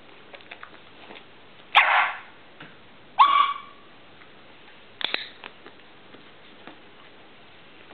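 A dog barks twice in short single barks, about two and three seconds in, followed by a shorter, fainter sound a second or so later and a few light taps.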